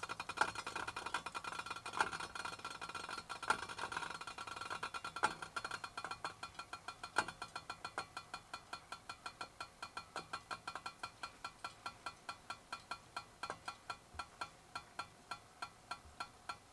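Metal gooseneck kettle on a camping gas stove ticking: a rapid run of small clicks, a few louder ones at first, then settling into a steady, fading patter of about five a second.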